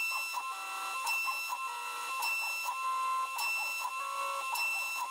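A shop-built KRMx02 CNC router cutting a hinge mortise in walnut with a 1/8-inch end mill. A steady high spindle whine runs under stepper-motor tones that jump in pitch every fraction of a second as the machine moves along its cut.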